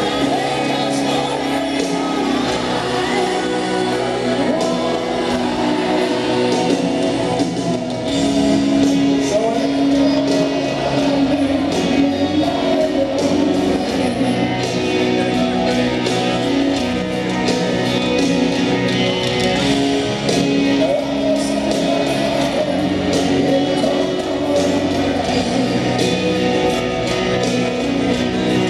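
Live rock band performing a slow piano ballad, a male lead voice singing over piano and the band, heard through the stadium's sound system from the audience.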